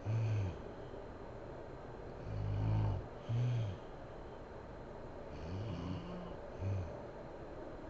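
A sleeping woman snoring, with a low, rough snore roughly every three seconds, each breath in two parts.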